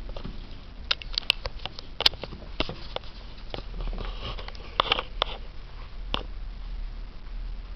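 Sheet of paper crinkling and rustling under a cat's paws and mouth: scattered short crackles and clicks, a few louder ones about two seconds in and again near five seconds.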